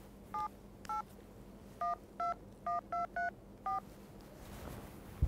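Smartphone keypad dialing a phone number: eight short touch-tone beeps, each two notes sounding together, tapped out at an uneven pace.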